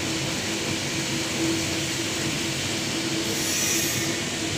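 PVC film slitting and rewinding machine running: a steady mechanical whir and hiss with a constant tone, and a higher hiss joining about three seconds in.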